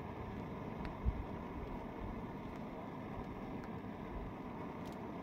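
Steady low rumble of wind on the microphone, with one low thump about a second in and a few faint clicks of a spoon against a metal cooking pot.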